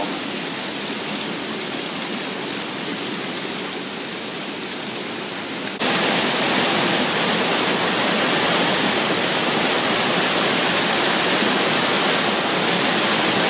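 Raging waterfall: a steady rush of falling water, turning suddenly louder about six seconds in.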